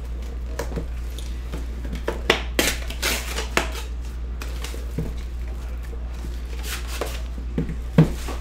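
Paper wrapper being torn off a cardboard trading-card box, a few quick ripping rustles, followed by short knocks of the box being handled on the table, the loudest near the end. A steady low hum runs underneath.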